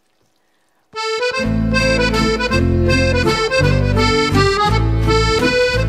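Background music played on accordion, starting about a second in after a moment of silence: a reedy melody over bass notes.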